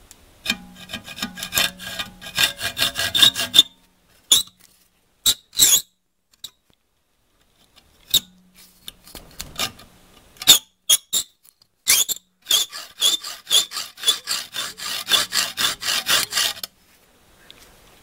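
Hacksaw blade cutting back and forth through a small metal bar clamped in a vise, sawing out a slot, in runs of quick rasping strokes. The sawing breaks off after a few seconds, with a few scattered strokes and a short quiet gap, then resumes steadily and stops shortly before the end.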